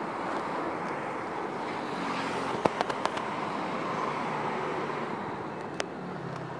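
Street ambience of steady traffic noise, with a quick run of sharp clicks about two and a half seconds in and one more click near the end.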